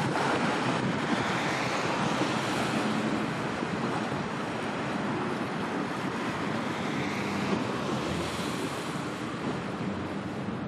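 Steady wind buffeting the microphone, mixed with the wash of waves on the water.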